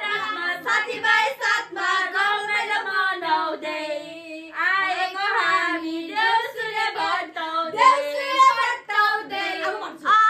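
Girls singing a song together, several young voices at once, with some notes held and sliding.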